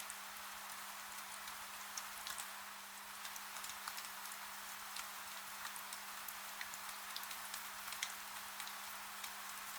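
Steady rain: an even hiss of falling rain with many individual drops ticking sharply at irregular moments. A faint steady low hum runs underneath.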